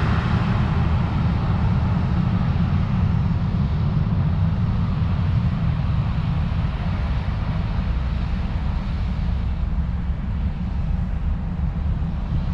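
Boeing 737-400's CFM56 jet engines running as the airliner rolls down the runway, a steady roar that slowly fades as the plane moves away.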